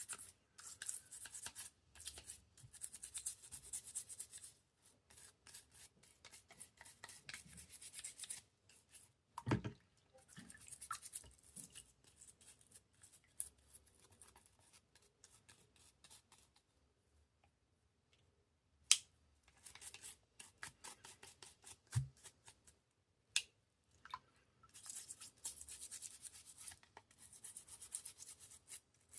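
Bursts of rapid scrubbing strokes on a Victorinox Spartan Swiss Army knife during cleaning, broken by short pauses, with a couple of dull knocks and a few sharp clicks.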